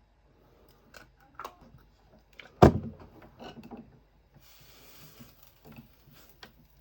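A scatter of small clicks and knocks, with one sharp, much louder knock about two and a half seconds in and a short hiss a little later.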